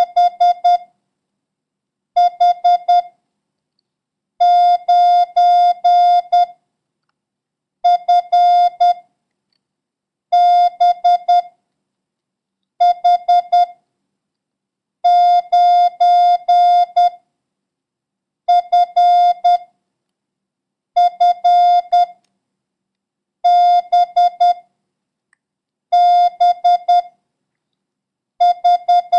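Morse code practice tone, a single steady beep keyed on and off in dots and dashes, sending the letters H, B, F and the number 9 for copying practice. It comes in about a dozen short groups, each a second or two long, separated by pauses of about a second.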